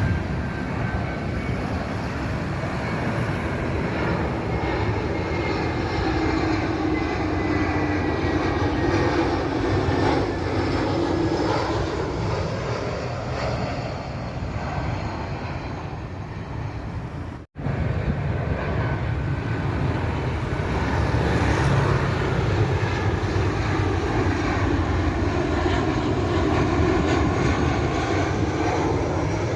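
Airbus A320-216 jet airliner passing low overhead: a steady jet-engine roar with whining tones that fall in pitch as it goes by. The sound drops out for an instant about seventeen seconds in, then the roar and falling whine carry on.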